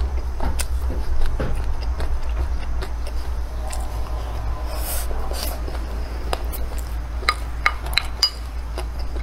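Wooden spoon scraping and clinking against a ceramic bowl while scooping fried rice, with a few sharp clinks about seven to eight seconds in. Between the scoops there is close-up chewing of the rice.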